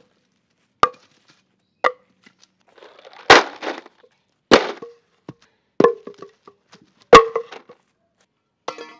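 A series of about six sharp wooden knocks, roughly one every second and a bit, each with a brief hollow ring: short lengths of cut 4x4 lumber being set down one at a time.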